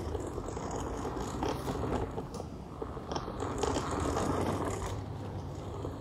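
Remote-control toy Mack truck driving across a laminate floor: its small electric motor and plastic gears whirring, with rattling and scraping from the plastic wheels and trailer.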